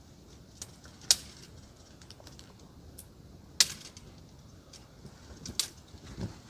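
A handful of scattered sharp clicks or snaps, about six in all, the loudest about a second in and just past the middle, over a faint steady background hiss.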